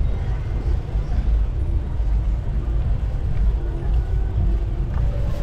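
Steady low rumble of wind buffeting the microphone on a moving bicycle.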